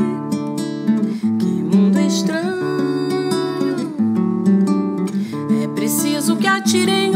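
Acoustic guitar music, plucked and strummed, with a melody line that glides in pitch now and then.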